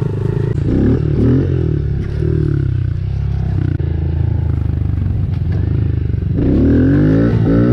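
Pit bike engine running under way and revving, its pitch climbing and falling back about a second in and again near the end.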